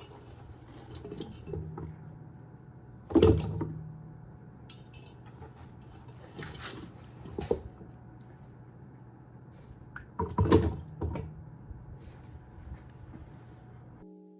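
Wet potatoes picked up by hand and dropped into a pot, as a Foley stand-in for chopped vegetables going into boiling water. There are two loud wet clunks, about three seconds in and about ten and a half seconds in, and lighter knocks and rustles between.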